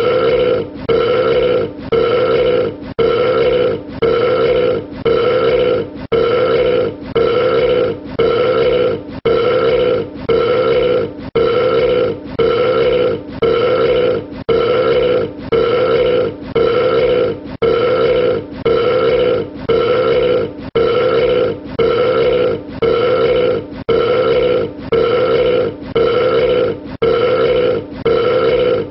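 A man burping, the same short belch repeated over and over at an even pace, a little more than once a second.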